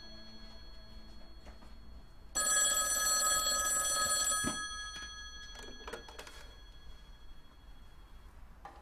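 Black rotary telephone's bell ringing: the previous ring fades out at the start and one more ring of about two seconds comes a couple of seconds in. The ringing then stops and a single clunk follows as the handset is lifted.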